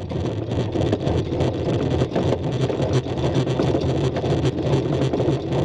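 Electric anchor windlass running steadily, its motor humming while the chain clatters link by link over the gypsy. The chain stays seated on the gypsy with no jumps, held on by an added stainless steel guide pulley.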